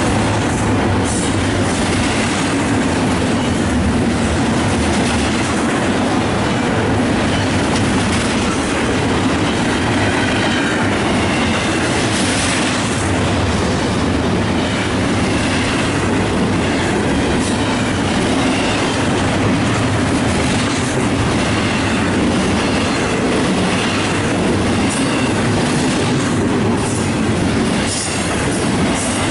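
Double-stack intermodal freight train's well cars rolling past at close range: a steady rumble and clatter of steel wheels over the rails. A faint high wheel squeal comes in now and then, most clearly about ten to thirteen seconds in.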